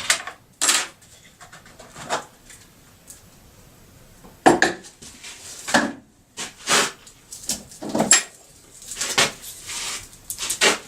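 Irregular clinks and knocks of hard metal and plastic chainsaw parts and hand tools being handled while the side cover comes off a Stihl MS 391 chainsaw, with louder clacks about halfway through and near the end.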